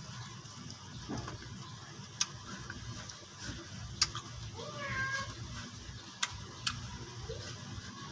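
Eating by hand from a steel pan: chewing and a few sharp clicks, the loudest about four seconds in. A cat meows once, about five seconds in, a short call that bends up and down in pitch.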